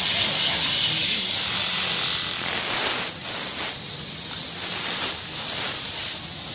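Kansai Special multi-needle industrial sewing machine running as fabric is fed through it: a steady high hiss-like whir that gets louder about two seconds in and dips briefly a few times.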